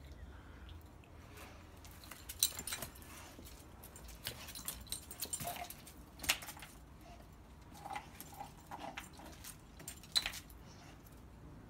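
A Vizsla moving about and nosing at something on brick paving: scattered light clicks and clinks from its claws and metal collar tag, with a few sharper ones a little over two seconds in, about six seconds in and about ten seconds in.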